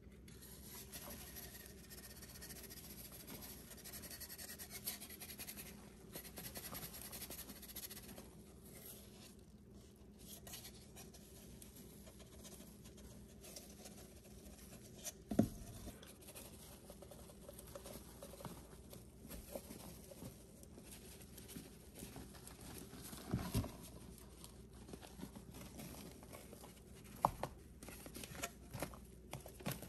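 Comet cleansing powder shaken from its can onto wet sponges: a soft, faint pattering hiss, broken by a few sharp knocks, the loudest about halfway through and near the end.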